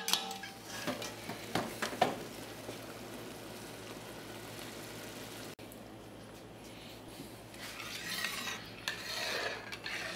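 A hand blender knocks a few times against the side of an enamelled cast-iron soup pot in the first two seconds. Then comes a quiet stretch. Over the last couple of seconds a metal ladle stirs thin soup, scraping and clinking against the pot.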